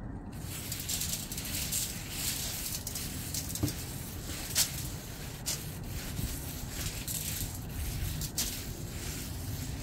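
Seasoning shaken from a shaker bottle over a beef roast: a steady hissing rattle of granules with sharper clicks now and then, over a low rumble.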